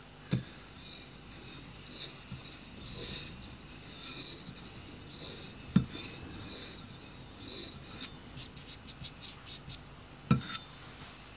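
Steel head knife being stropped on a compound-dressed leather strop: faint scraping strokes of the blade across the leather, taking metal off and polishing the edge. Three light knocks, and a quick run of short strokes near the end.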